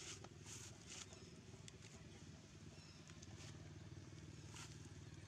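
Faint, steady low mechanical hum, with a few brief soft rustles.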